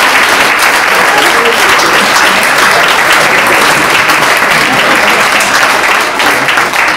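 Audience applauding, a loud, steady mass of many hands clapping.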